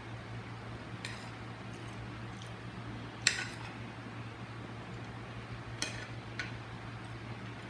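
Spoon and fork clinking against a plate while eating: a handful of sharp, separate clinks, the loudest about three seconds in.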